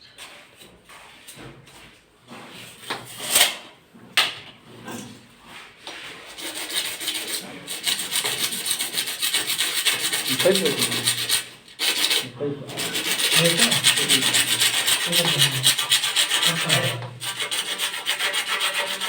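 A few scattered knocks, then from about six seconds in a long run of rapid rubbing or scraping strokes, like a file or abrasive worked fast against a hard part.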